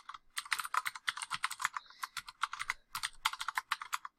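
Computer keyboard typing: quick runs of keystrokes with a couple of brief pauses.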